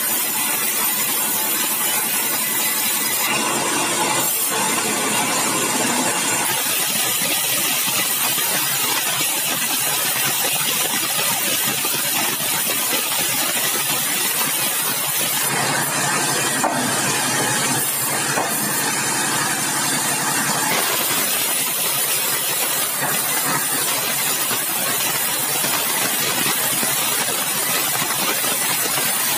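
Large sawmill band saw running and ripping along a bengkirai hardwood beam: a loud, steady, hissing saw noise whose tone shifts a few seconds in and again around the middle as the cut goes on.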